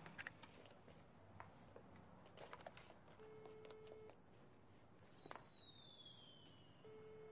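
Telephone ringback tone heard faintly through a handset: a steady low tone about a second long, sounding twice about three and a half seconds apart, while the line rings at the other end. A high whistle falling in pitch runs between the two tones, and a few faint clicks come near the start.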